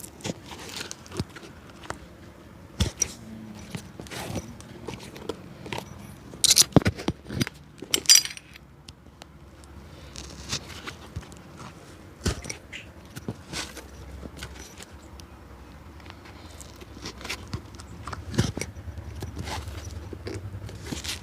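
A cobbler's hand tools working on an old shoe: irregular taps, clicks and scrapes, with a few louder scraping strokes about six to eight seconds in. A low rumble builds near the end.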